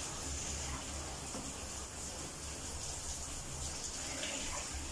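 Handheld shower spraying water onto a dog in a plastic bucket, a steady hiss.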